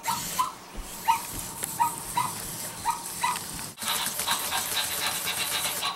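Spin Master Zoomer robot dog's speaker playing a string of about eight short, rising electronic puppy yips over three seconds. About two-thirds of the way through they give way to a fast rhythmic buzz from the robot.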